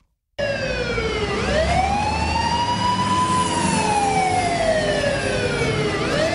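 Emergency siren wailing, its pitch sweeping slowly up and down (one long rise and fall over about five seconds) over a low rumble; it starts suddenly after a brief silence.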